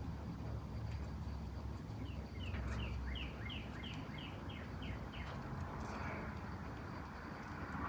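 A bird singing a run of about ten quick notes, each sliding downward in pitch, roughly three a second, over a low steady rumble.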